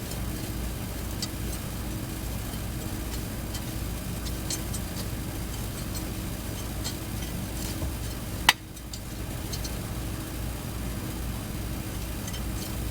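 A steady low running hum with faint scattered ticks, and one sharp loud click about eight and a half seconds in.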